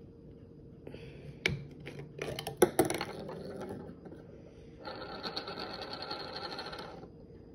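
Plastic screw cap of a water bottle being twisted open by hand: a few sharp clicks, then about two seconds of rapid ratcheting clicks as the cap turns.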